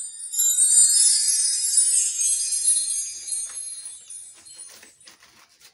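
A bright jingle of many small bell-like chimes ringing high and shimmering, loudest about a second in and fading away over the next few seconds.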